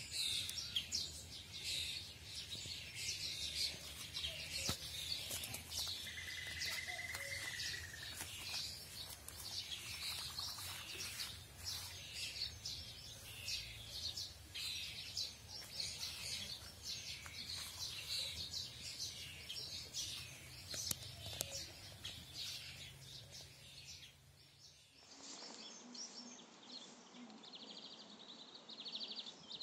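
Small songbirds chirping and singing continuously in many quick, high calls, with one steady trill a few seconds in. Near the end the sound changes abruptly to a duller recording in which fainter chirps carry on.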